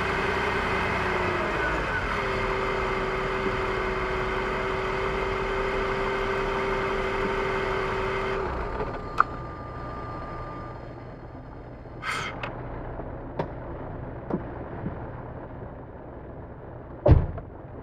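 BMW E46 330xi's 3.0-litre inline-six running, then switched off about eight seconds in. After shutdown, about half a dozen irregular coughing puffs follow, the loudest near the end, which the owner suspects come from the DISA valve or the idle control valve.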